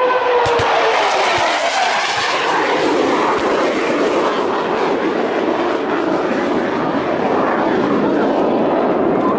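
Jet aircraft flying past with a loud roar. Its tone falls in pitch over the first couple of seconds as it goes by, and the roar then carries on steadily as it moves away.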